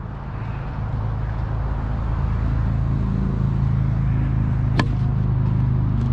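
An engine running nearby, a steady low hum that swells over the first second and then holds. About five seconds in there is one sharp crack of a tennis ball being struck.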